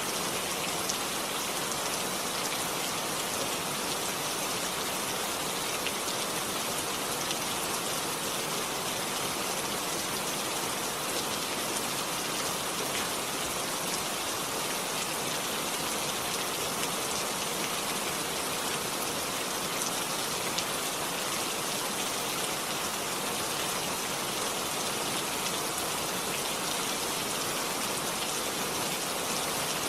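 Steady rainfall: an even hiss of rain with scattered drops pattering on a surface.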